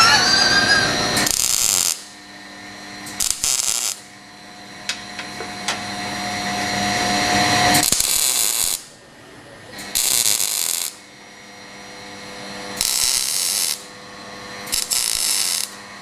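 MIG welder tack-welding small steel plates onto a car's sheet-metal panel: six short bursts of arc crackle, each about a second long, with pauses between.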